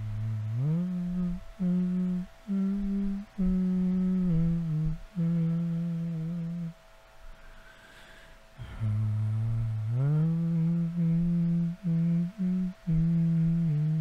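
A man humming a slow, soothing melody in a low voice, holding each note and stepping between pitches. He hums in two phrases, broken by a pause of about two seconds near the middle.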